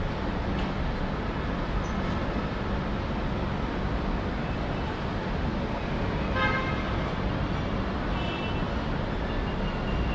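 Steady urban road traffic din, with a short car horn toot about six seconds in and fainter horn toots a couple of seconds later.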